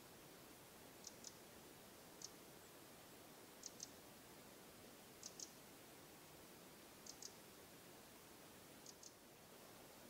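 A small bird giving short, high chirps, mostly in quick pairs, repeated every second or two over faint forest ambience.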